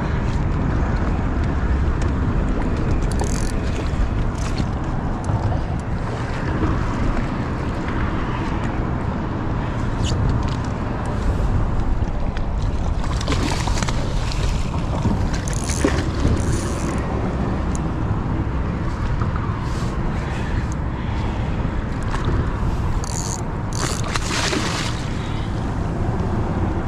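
Wind buffeting the microphone over choppy water lapping at a kayak, with a few sharp splashes, the loudest near the end, as a hooked fish thrashes at the surface beside the boat.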